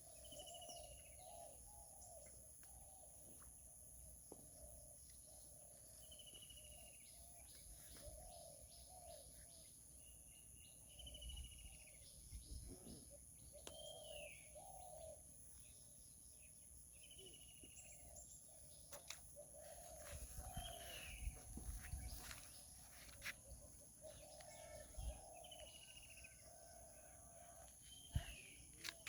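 A bird repeating a short, high, falling call every few seconds, faint, over a steady high insect drone.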